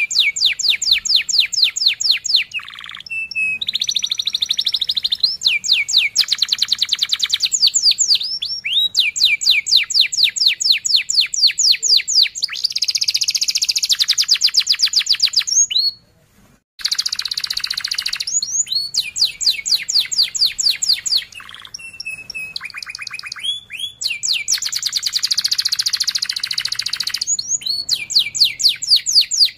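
Domestic canary in full song, singing rolling trills: runs of very fast, evenly repeated downward-sweeping notes, each run lasting a few seconds, one run after another with short breaks and a brief silence about halfway through.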